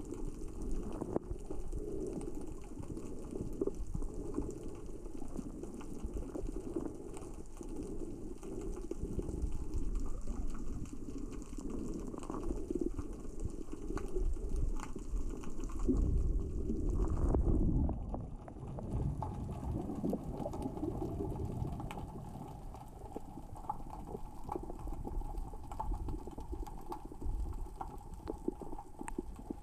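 Underwater ambience: a dense, continuous crackle of small clicks over a low rumble of moving water, which the diver takes for small rocks rolling across the sea floor in the current and tide. The rumble swells for a couple of seconds a little past the middle.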